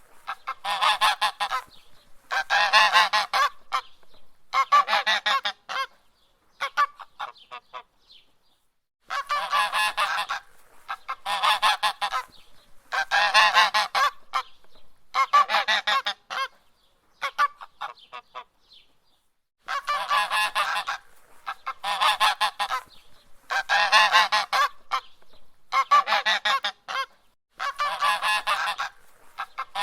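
Goose honking in repeated bouts, each a quick run of nasal honks lasting about a second, with short pauses between bouts and two longer lulls, about a third and about two thirds of the way in.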